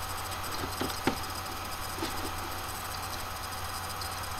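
Room tone of a recording microphone: steady hiss with a low hum, broken by a few faint clicks about one and two seconds in.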